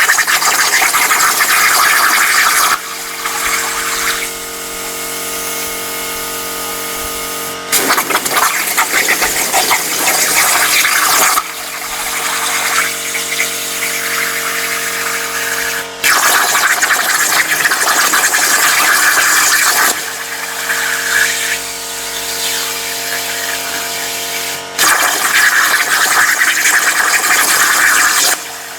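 CNC plasma cutter firing in four cuts of about three to four seconds each, a loud hiss each time the torch cuts, with a steady machine hum in the pauses between cuts.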